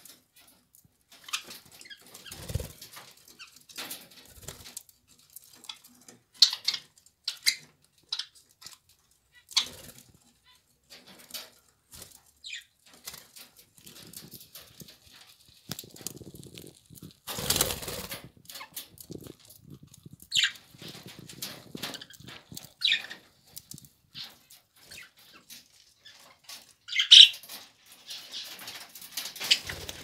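Budgerigars eating millet from a plastic feed cup: irregular small clicks and taps of beaks husking seeds and knocking the cup, with a few louder bursts of wings flapping as birds shift on the perch.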